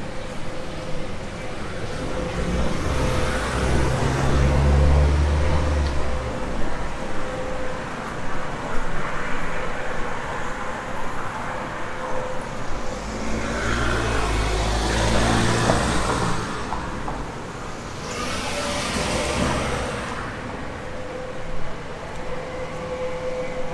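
Road traffic: several cars pass one after another, each swelling and fading, over a steady background of street noise with a faint steady hum.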